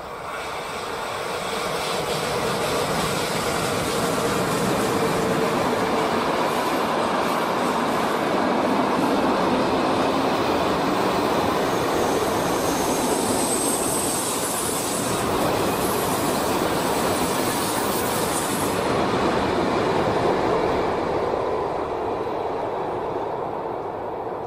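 Freight train hauled by two BLS Re 425 electric locomotives passing close by. The sound builds as the locomotives arrive, then holds as a steady rumble of wagon wheels on the rails, with a brief high wheel squeal about halfway through. It fades near the end as the last wagons go by.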